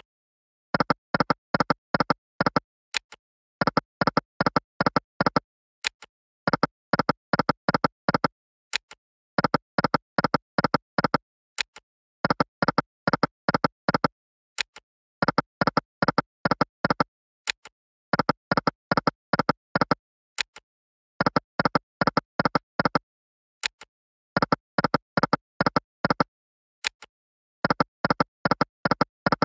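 Online video slot game's sound effects as the reels spin repeatedly: a quick run of short pitched electronic ticks with each spin, about every three seconds, and a faint sharp click between runs.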